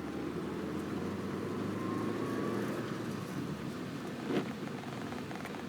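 Road and engine noise heard from inside a LADA Kalina's cabin while driving, steady throughout, with one short thump a little over four seconds in.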